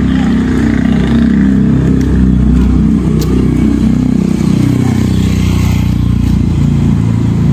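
Motorcycle engine running as the bike rides slowly past close by, its low engine note shifting in pitch.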